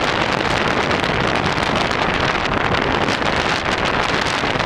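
Strong wind buffeting the microphone in a steady, loud rush, with rough sea surging against the rocks underneath.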